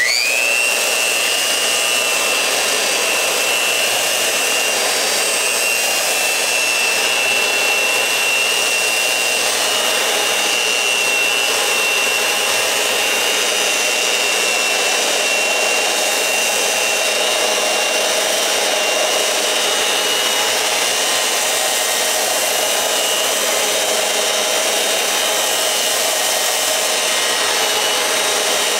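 Early-1940s Porter-Cable T-33 Take-About belt sander switched on, its whine rising quickly to speed, then running steadily with a high whine as it is pushed along a wooden board.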